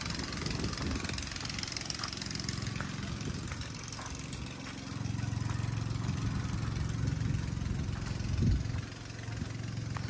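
Diesel engine of a Sumitomo tracked excavator idling steadily, growing louder about halfway through, with a brief louder burst near the end.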